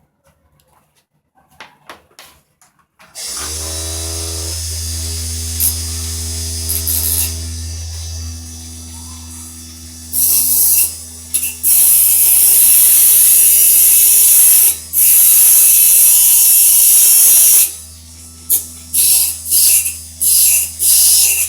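Homemade lathe's electric motor switching on about three seconds in and running with a steady hum. From about ten seconds, loud hissing comes in long stretches and then in short, choppy bursts near the end.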